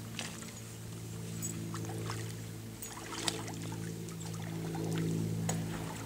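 A steady low hum made of several held tones, with faint scattered clicks and a single sharp tick about three seconds in.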